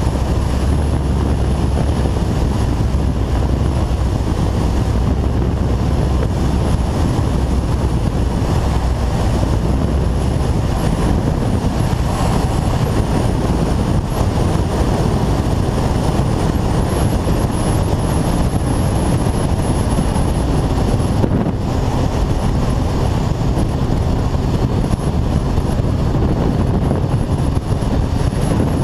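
Kawasaki ZZR 1400 sport motorcycle being ridden at speed: a steady rush of wind and engine noise. The deepest rumble eases about ten seconds in.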